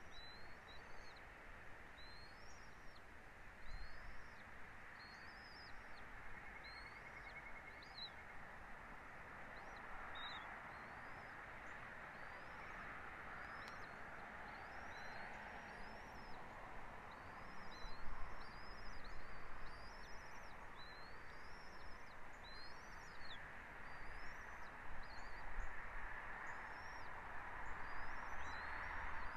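A bird calling repeatedly in short, high, rising chirps, roughly one or two a second, over a steady background hiss.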